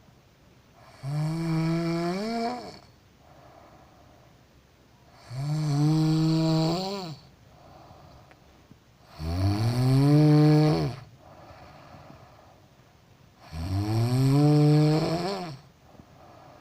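A woman snoring loudly in her sleep: four long, pitched snores about four seconds apart, each lasting about two seconds and rising in pitch at its end, with softer breathing between them.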